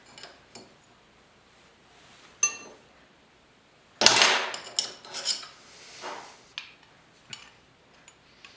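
Metal clanks and knocks as a small metal bracket and tools are handled during bending: a single ringing clink about two seconds in, a loud clank about four seconds in, then a few lighter knocks.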